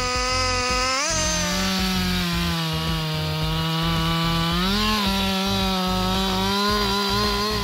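Two-stroke chainsaw running at full throttle, cutting through a large tree trunk. Its engine pitch drops about a second in as the chain takes the load, sags slowly, then rises again near the five-second mark.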